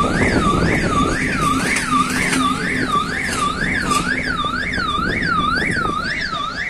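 Electronic warning siren warbling up and down about two and a half times a second, with the low rumble of a train moving through the station beneath it.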